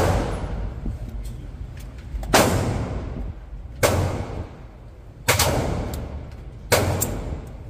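Five pistol shots about a second and a half apart, each ringing out in a long echo down an indoor shooting range.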